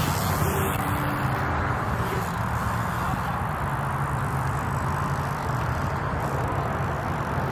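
A steady, even roar of outdoor background noise with a low rumble underneath. The BMX rider's run over the dirt jumps does not stand out from it as separate landings.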